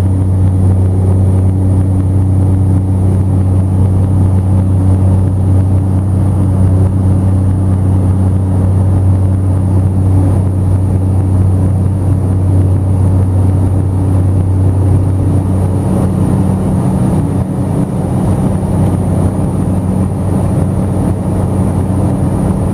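Cessna Caravan's single Pratt & Whitney PT6A turboprop engine and propeller droning steadily in the climb after takeoff, heard from inside the cabin, with a thin high whine over the deep hum. About sixteen seconds in, the deepest tone of the drone fades and the tone above it grows stronger.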